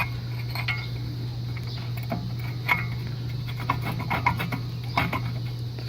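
Scattered light metallic clicks and knocks of tools and parts being handled, some with a brief ring, over a steady low hum.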